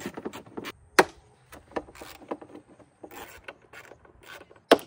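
Hand tool clicking and scraping as the screws of a Suzuki 150 outboard's side cover are undone, with a sharp knock about a second in and another near the end.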